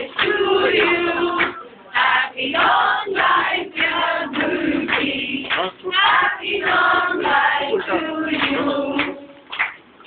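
A group of men and women singing together, in short phrases with brief breaks between them.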